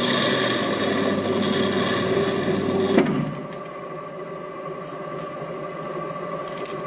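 Thread-rolling machine running as its two grooved cylindrical dies roll a thread onto a steel rod: a steady mechanical drone with a hum. A sharp click comes about three seconds in, after which the machine runs quieter.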